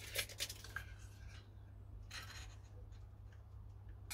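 Scattered light clicks and rubbing from hands working the blade-depth adjustment of a cordless circular saw, over a low steady hum; the saw is not running. The sharpest clicks come near the start and about two seconds in.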